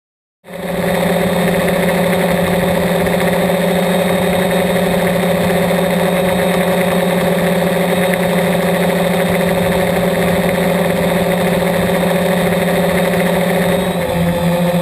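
Multirotor drone's electric motors and propellers running with a steady, loud hum, starting abruptly about half a second in; the pitch shifts near the end as the throttle changes.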